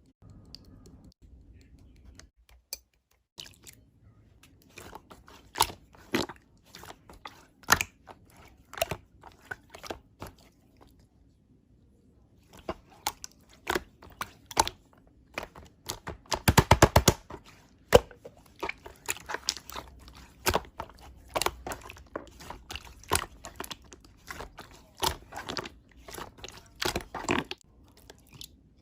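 Slime being squeezed and poked by hand, making irregular wet crackles and popping clicks. About 17 seconds in comes a quick run of rapid pops.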